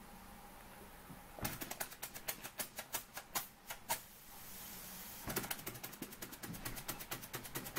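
Small toy beam steam engine, a Junior Engineer SE-100, starting to run on steam: a quick run of sharp ticking beats for a couple of seconds, a short hiss as it falters, then from about five seconds in a fast, even ticking beat as it picks up and keeps running.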